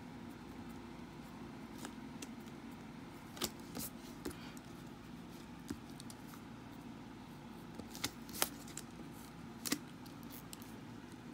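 A pen writing on paper over a steady low room hum, with a few sharp clicks and taps of the pen on the page. One pair of clicks comes about three and a half seconds in and another cluster comes around eight to ten seconds.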